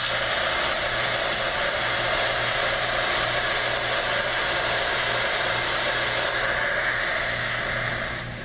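Homedics SoundSpa sound machine playing its white noise setting through its small speaker: a steady, even hiss. It is turned down near the end.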